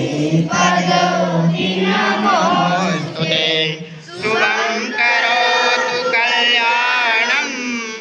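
A crowd singing together in unison in long, drawn-out phrases, with short breaks about two and four seconds in.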